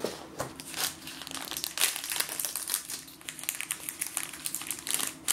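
Snack-cake packaging being torn open and handled, with irregular crinkling and crackling throughout and one sharper crackle near the end.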